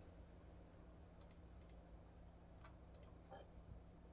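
Near silence: a low steady hum with a few faint clicks, coming in quick pairs, three times.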